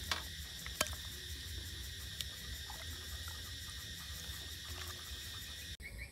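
Insects chirping steadily, with a low hum underneath and a few light clicks in the first couple of seconds. The sound breaks off briefly near the end.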